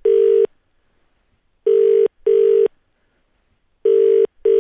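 Telephone ringback tone heard down a phone line: the Irish and British double ring, two short steady tones repeating about every two seconds while the call rings out unanswered.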